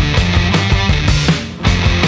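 Rock music with a steady drum beat, dipping briefly about a second and a half in.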